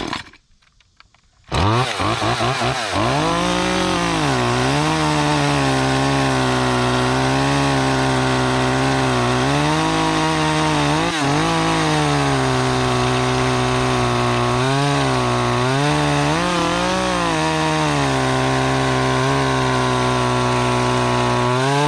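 Echo 25cc two-stroke chainsaw coming up to full throttle about a second and a half in, then cutting through a log about 5 inches thick. The engine note holds lower under load and rises briefly a few times as the chain frees up. It drops away at the end.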